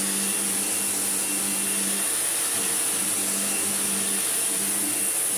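Sebo Automatic X7 upright vacuum cleaner running on a rug, a steady high motor whine over a rushing hiss, with a low hum that comes and goes as the head is pushed back and forth.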